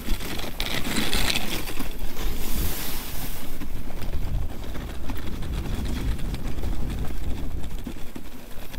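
Moving dog sled: the runners hiss and scrape over snow, with a steady low rumble of wind and jolting on the microphone.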